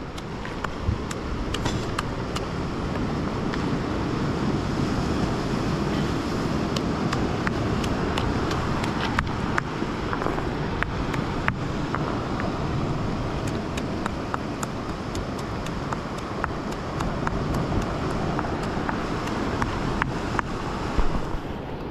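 Ocean surf washing and breaking on the rocks below a sea cliff, mixed with wind on the microphone, as a steady rushing noise. Faint scattered clicks run through it.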